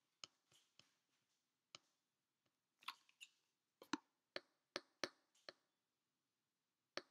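Irregular sharp clicks and taps on a computer, about a dozen, thickest between three and five and a half seconds in, made while trying to stop a webcam recording.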